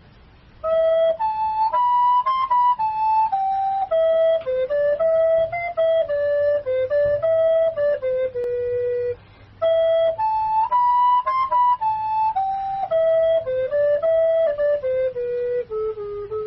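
Solo flute-like wind instrument playing a slow, simple melody one note at a time. The phrase is played twice, with a short break about nine seconds in, and the second ends on a long held low note.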